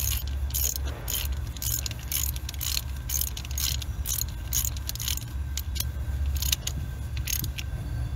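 Ratchet wrench clicking in a quick series, about three clicks a second with short pauses, as a spark plug is screwed into the cylinder head. A steady low hum runs underneath.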